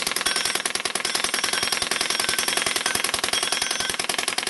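Suppressed Spitfire submachine gun firing one long, unbroken full-auto burst, a rapid even stream of shots while a 70-round magazine is emptied.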